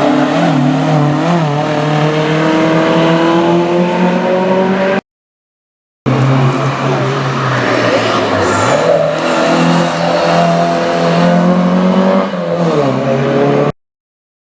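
Rally car engine at full throttle, its pitch climbing steadily as it accelerates. After a brief cut to silence, another rally car's engine pulls hard, briefly drops in pitch once, then falls in pitch near the end as it passes and backs off.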